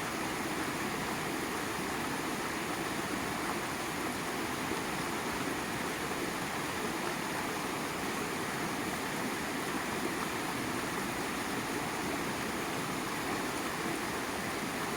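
Steady rush of flowing water, an even noise without breaks or crackles.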